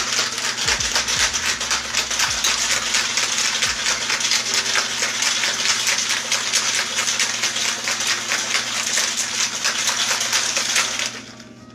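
Metal cocktail shaker shaken hard, the ice inside rattling rapidly and steadily, then stopping near the end.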